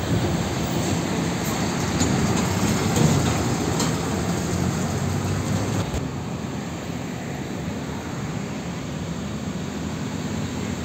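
UD Trucks Quester tanker truck's diesel engine and tyres as it drives past. About six seconds in the sound changes abruptly to a quieter Hino tanker truck's diesel engine approaching.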